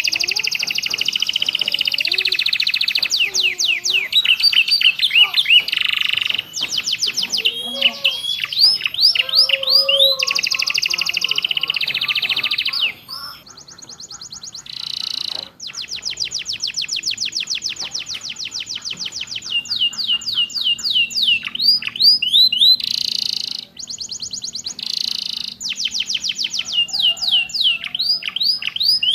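Domestic canary singing fast trills and long runs of sharp repeated chirps, its song filled with ciblek and prenjak (prinia) phrases. There is a short break in the song about halfway through.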